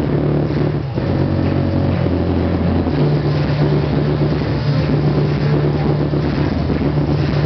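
Loud electronic music with a low droning bass line that changes note about a second in and again about three seconds in.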